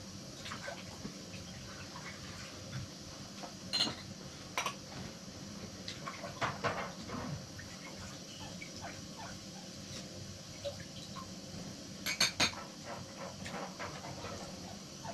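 Household dishes and utensils clinking and knocking now and then: scattered light taps, with a quick cluster of clinks about twelve seconds in, over a steady low background noise.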